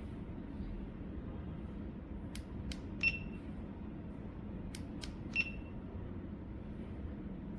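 Small plastic button clicks on an action camera setup, in two groups about two seconds apart, each group ending in a click with a short high beep from the camera.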